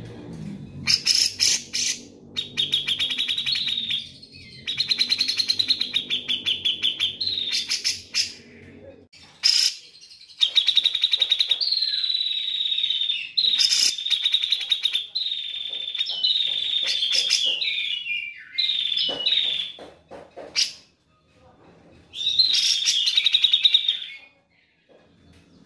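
Grey-cheeked bulbul (cucak jenggot) singing: a run of fast, chattering trilled phrases, each a second or two long, with short pauses between them.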